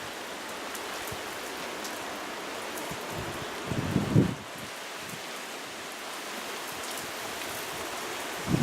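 Heavy thunderstorm rain falling steadily, a dense hiss of drops on surfaces. About four seconds in comes a brief, louder low thud.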